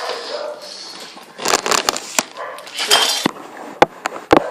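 Handling clatter as objects are picked up and set down: rustling and scraping with a few sharp knocks near the end, the loudest just before it ends.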